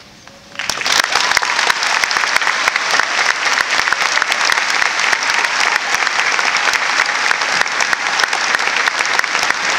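A large audience breaks into applause about half a second in, dense clapping that goes on steadily.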